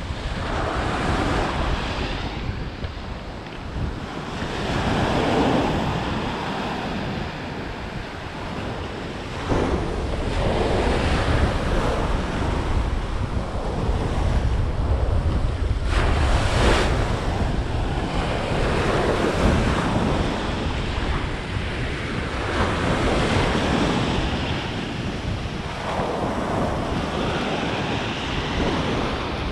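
Ocean surf breaking and washing up the beach, swelling and fading every few seconds, with wind rumbling on the microphone.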